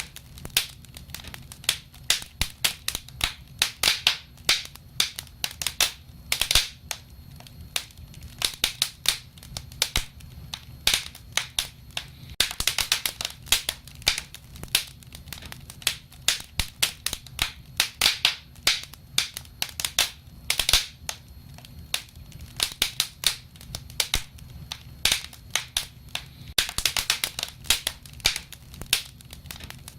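Wood fire crackling: irregular sharp pops and snaps, sometimes in quick clusters, over a steady low rumble of the flames.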